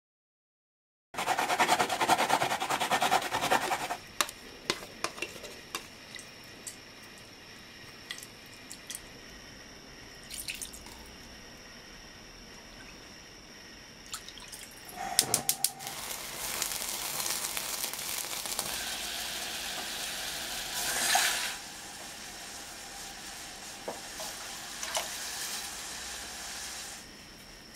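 Liquid seasonings (mirin, then soy sauce) poured from a metal measuring cup into a small aluminium saucepan in several pours, each a steady splashing trickle, with a few light knocks of metal on metal.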